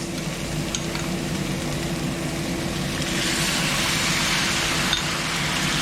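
Chicken feet frying in a hot pan over a steady low mechanical hum. A louder, brighter sizzle swells about three seconds in as the soy-and-oyster sauce goes in.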